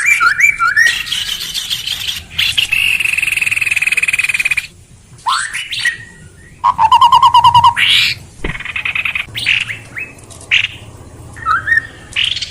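Recorded songbird calls played as a bird-catching lure: a varied run of short rising whistles, a long buzzy trill a couple of seconds in, a fast string of repeated notes about halfway through, then more short rising whistles.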